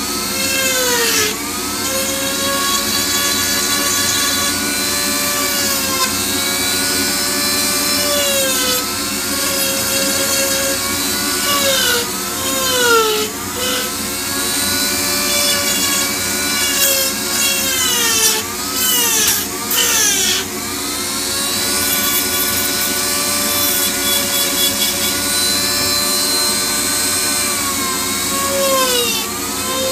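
High-speed rotary carving tool spinning a Kutzall reverse cone burr into wood: a steady whine that dips in pitch again and again as the burr is pressed into the cut, then recovers.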